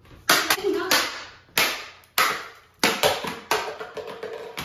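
Sharp impacts, about nine at uneven intervals, each ringing off briefly in a hard-walled, tiled room.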